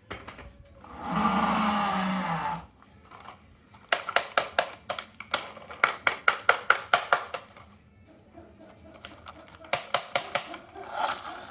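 Marbles clicking and clattering along a wooden HABA marble run, in quick irregular runs of sharp clicks. Before them, about a second in, a louder sustained hissing sound with a low hum lasts about a second and a half.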